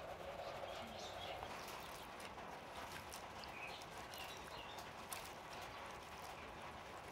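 Faint sloshing and light wet clicks as sliced onions are rubbed and squeezed by hand in a shallow bowl of water, washing them.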